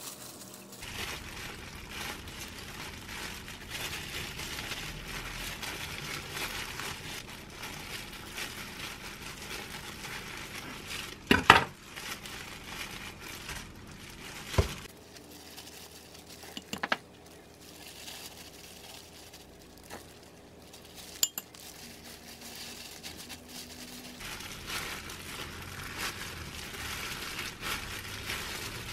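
Disposable plastic gloves crinkling and rustling as hands spread rice over seaweed and handle gimbap fillings, with a few sharp knocks, the loudest about a third of the way in.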